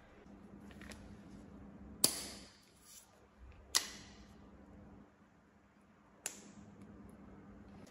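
Stretched latex balloon rubber snapping under the fingers: three sharp snaps, about two, four and six seconds in, the first the loudest.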